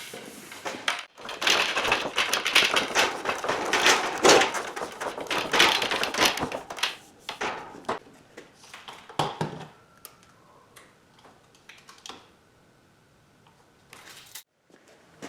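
Half-inch compressed-air tubing being pulled through a homemade pipe straightener: a dense run of scraping and clattering lasting about six seconds, then scattered knocks and ticks.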